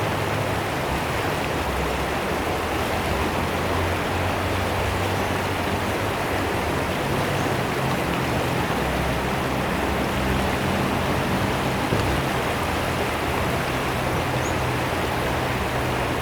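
Fast-flowing river water rushing and splashing, a steady even rush with no pauses.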